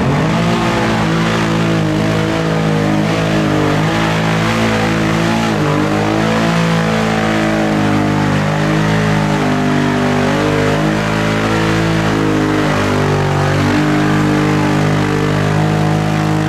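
Lifted Can-Am ATV engine revving hard and held at high revs under heavy load while the tyres churn through deep mud. The pitch wavers and dips briefly a few times as the engine bogs and picks up again.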